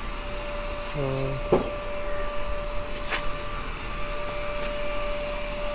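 A small machine's motor humming at one steady pitch over background hiss, starting about a second and a half in, with a short voice and a couple of light clicks.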